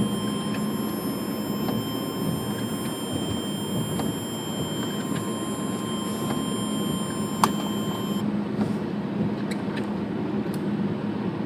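Steady low rumble of a vehicle running, heard from inside the cabin. A faint high whine runs along with it and cuts off about eight seconds in, and there is a single sharp click a little before that.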